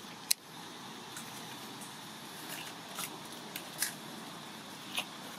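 A sharp click about a third of a second in, then a few short, dry crackles of leaf litter as young macaques tussle on the ground, over a steady background hiss.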